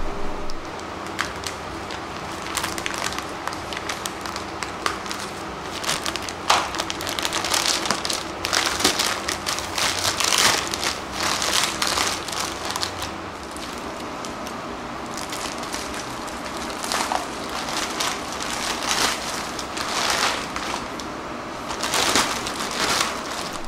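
Thick clear plastic bag crinkling and crackling in irregular handfuls as it is pulled off a new automatic transmission.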